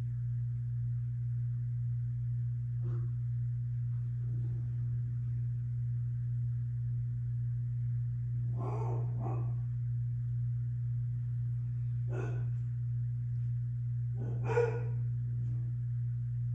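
Tortoise rooting through a snuffle mat for pellets, making about six short, separate scuffling sounds, the loudest near the end. A steady low hum runs underneath.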